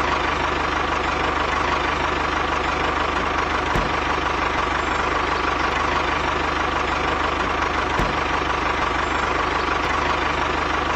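Tractor engine running steadily at idle, an even unchanging engine sound laid over the toy tractor model.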